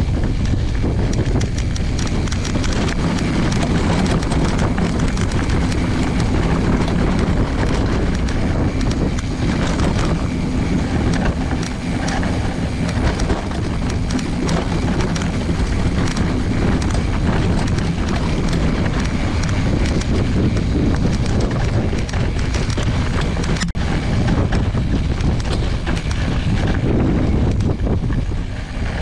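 Mountain bike rolling over a rough dirt and gravel trail: the knobby front tyre crunching over stones and the bike rattling in a continuous, dense clatter of quick irregular knocks.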